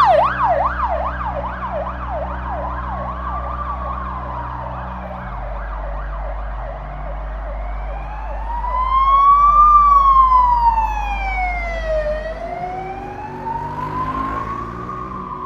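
Police car siren: a fast yelp gives way to a slow rising and falling wail. The siren grows louder to a peak about ten seconds in, then fades.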